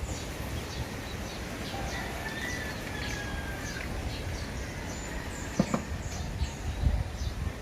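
Birds chirping in many short, high calls, with a longer level whistle a few seconds in, over a steady low rumble. A knock sounds near the end.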